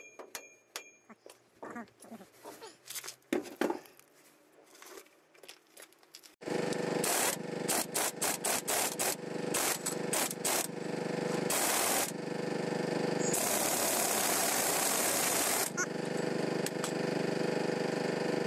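Impact wrench on the differential's pinion flange nut: short hammering bursts, then a longer run of about two seconds past the middle as the nut comes loose. All this sits over a steady machine drone that starts suddenly about a third of the way in. Before that, only light metal clinks of hand tools on the driveshaft joint.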